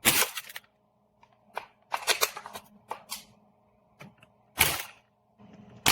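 Sharp clicks and short clattery rattles of hard plastic and metal airsoft gun parts being handled and snapped together, a loud click at the start, a cluster about two seconds in and another sharp click near the end, over a faint steady hum.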